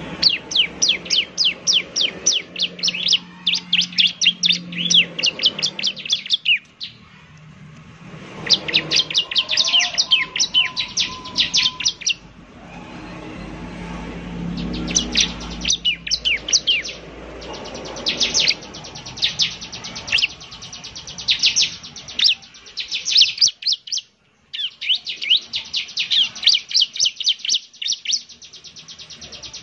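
Bar-winged prinia (ciblek) singing in bouts of fast, rapidly repeated high chirps, each bout a few seconds long, with short pauses between them.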